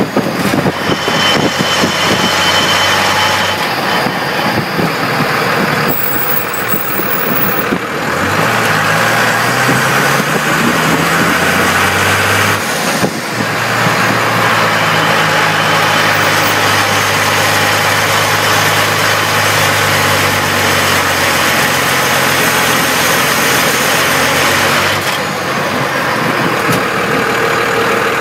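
12-valve Cummins turbo-diesel inline-six of a 1998 Dodge Ram 2500 pulling hard at low rpm, lugged at about 950–1250 rpm in a manual gear, heard from under the truck with road noise. A rattle comes in while it lugs, a noise whose cause the owner does not know.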